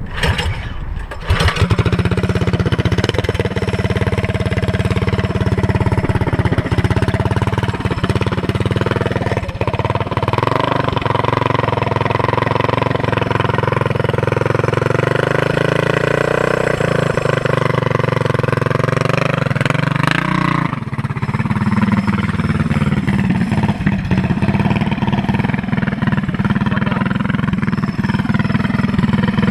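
A Harbor Freight Predator 212cc single-cylinder four-stroke minibike engine is pull-started about a second in and then keeps running. Its pitch wavers up and down midway, then settles to a steadier note about twenty seconds in.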